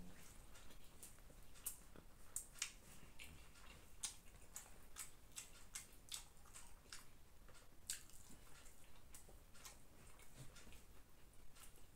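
Faint, irregular wet clicks of someone eating chicken biryani by hand: chewing, with fingers squishing rice on a banana leaf.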